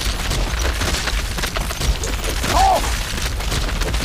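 Film sound effects of a rat swarm: dense scrabbling and crackling over a steady low rumble, with a short squeal about two and a half seconds in.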